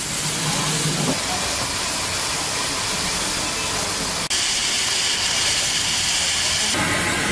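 Steam hissing from a standing Darjeeling Himalayan Railway steam locomotive as it leaks around the cylinders and blows from the drain cocks near the wheels. The hiss is steady, then changes abruptly about four seconds in to a brighter, stronger hiss.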